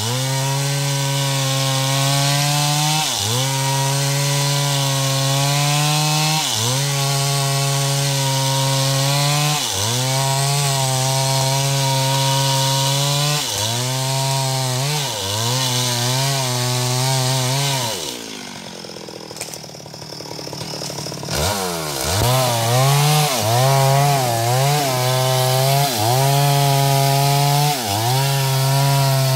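Stihl MS 382 two-stroke chainsaw running at high revs while cutting wood, its pitch dipping briefly every few seconds. About two-thirds of the way through it drops to a low, quieter run for a few seconds, then revs back up with several short blips of the throttle.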